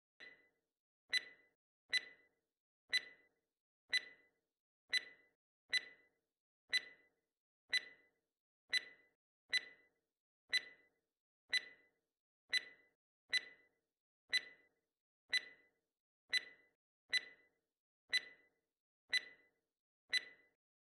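Quiz countdown-timer sound effect: a clock ticking about once a second, counting down the time to answer the question.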